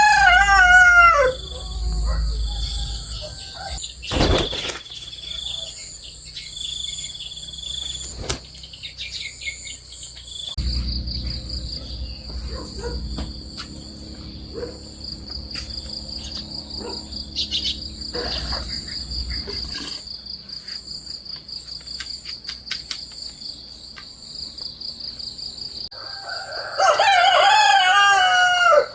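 A rooster crowing at the start and again near the end, over a steady high buzz of insects. A single thump about four seconds in.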